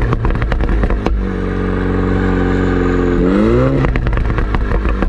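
Mini John Cooper Works' turbocharged four-cylinder through a JCW Pro exhaust, heard right at the twin tailpipes while driving. It crackles and pops on the overrun, settles into a steady drone, then the revs rise quickly about three seconds in, followed by more pops and crackles.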